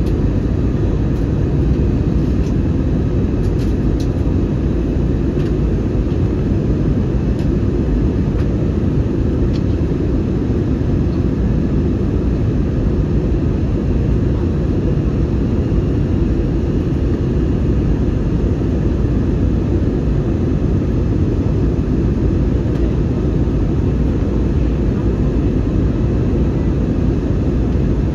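Airliner cabin noise in flight: a steady, unchanging rush of engine and airflow noise, heaviest in the low range.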